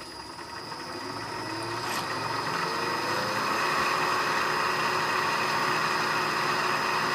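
Milling machine spindle running a 1/8-inch end mill: a steady high whine over a hiss that grows louder over the first few seconds, then holds steady.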